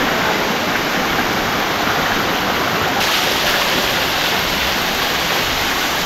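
Hot-spring waterfall pouring over mineral-crusted rock: a steady rush of falling water. About halfway through it turns brighter and hissier.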